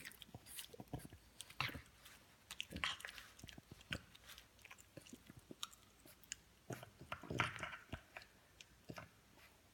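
French bulldog chewing and gnawing on a dog toothbrush chew toy, with irregular clicks of teeth and short wet bursts, the loudest a little past seven seconds in.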